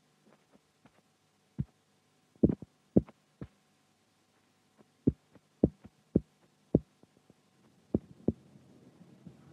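A series of about ten dull, low thumps on the animation's soundtrack, some in pairs, spaced roughly half a second to a second apart with short pauses between groups, over a faint steady hum.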